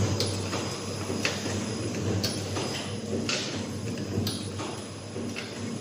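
Automatic two-line dimsum (siomay) forming machine running: a steady hum with a sharp mechanical stroke about once a second as it cycles.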